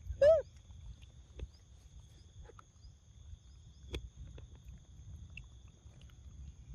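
A young macaque gives one short, loud, arching squeak near the start, then faint wet clicks of chewing papaya. A steady faint high whine runs underneath.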